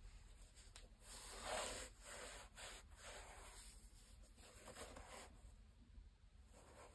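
Faint rustling and rubbing of white cotton gloves handling a Nike Air Max 1 sneaker, brushing over its suede and mesh upper as it is picked up and turned. It comes as a few short brushes, the loudest about one and a half seconds in.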